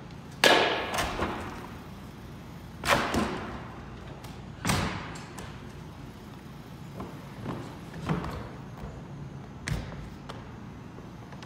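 A person's feet landing and stepping on gymnastics apparatus: irregular thuds on wooden and padded equipment, echoing in a large hall. The loudest landings come about half a second, three seconds and five seconds in, with lighter steps between.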